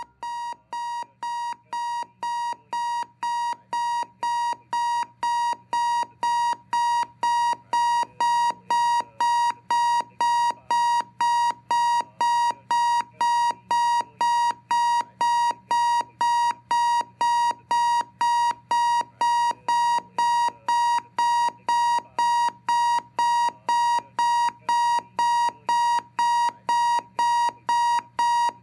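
Electronic alarm clock beeping, about two short beeps a second on one pitch. It grows louder over the first several seconds, then holds steady as a wake-up alarm.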